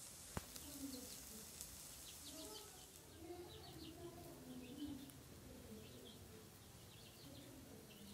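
Faint bird chirping in the background, short high chirps repeating on and off, with a single click about half a second in.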